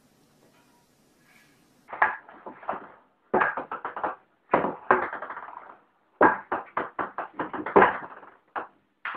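Ping-pong ball bouncing on a table-tennis table and struck by a paddle: irregular bursts of hard, rapid clicks starting about two seconds in.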